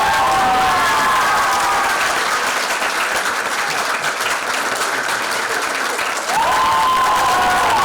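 Audience applauding steadily. A few held tones sound over it near the start and again in the last couple of seconds.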